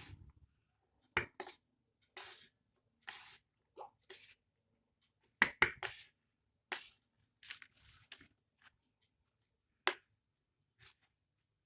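Close-miked food sounds from a plate of chow mein: a run of short, irregular wet clicks and squishes, loudest in a cluster about five and a half seconds in.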